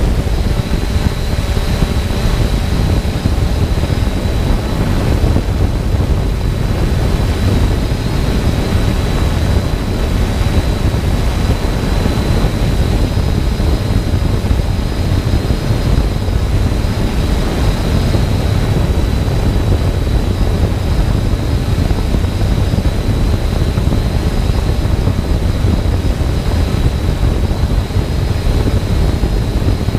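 Multirotor drone hovering, heard from its own onboard camera: the steady whine of its motors and propellers over a low rumble.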